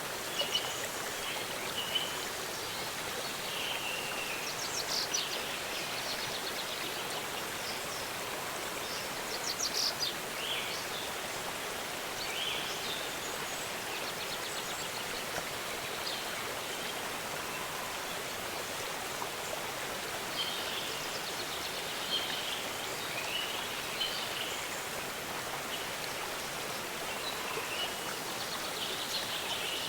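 Steady rush of a waterfall, with birds chirping at intervals over it and short quick trills about five and ten seconds in.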